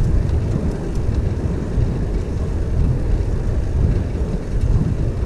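Wind buffeting a bicycle-mounted camera's microphone while riding at speed, a steady low rumble with road noise under it.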